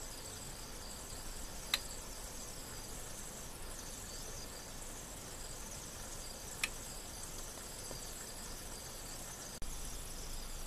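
Onion wedges sizzling in olive oil in a frying pan: a steady high hiss, with two sharp pops of spitting oil, one about two seconds in and one past the middle.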